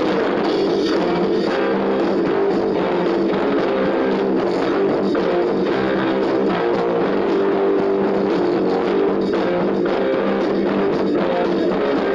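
Rock music with guitar and drums playing steadily.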